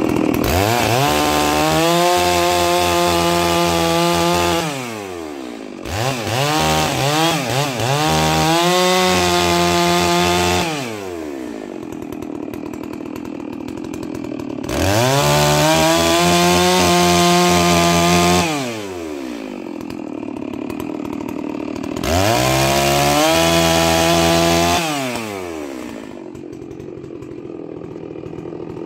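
Holzfforma G660 two-stroke chainsaw, new and being broken in, revved to full throttle four times, each time held at high speed for about four seconds while cutting thin wood, then dropping back to idle. The second burst begins with a few quick throttle blips.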